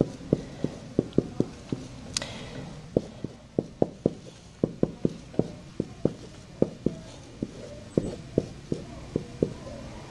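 Dry-erase marker writing on a whiteboard: an uneven run of short taps, about three a second, as the tip strikes and lifts off the board.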